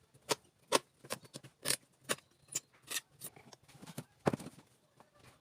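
A series of about ten sharp, irregular clicks and snaps, the loudest about four seconds in, as the upholstery is pried and pulled off an old chair's frame.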